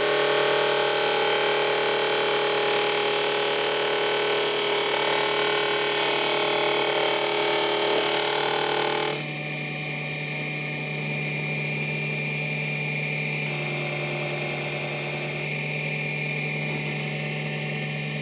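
Mini metal lathe turning a wooden dowel: the motor's steady whine under the rasp of the cutter taking wood off. About halfway through the cutting sound stops suddenly and the lathe runs on alone, quieter and steady.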